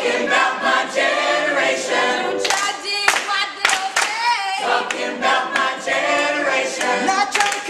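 A group of voices singing together a capella, with hand claps struck here and there over the singing.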